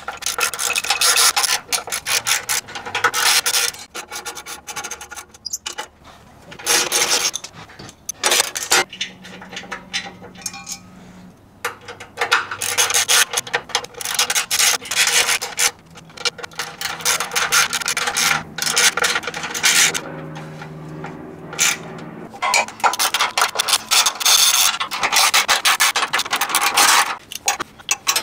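Hand socket ratchet turning bolts on a truck's underbody cross brace: quick rasping clicks in several runs of a few seconds each, with short pauses between.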